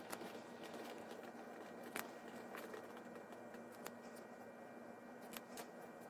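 Trading cards being handled, with a few faint scattered clicks and light rustles as cards are moved between the hands, over a faint steady hum.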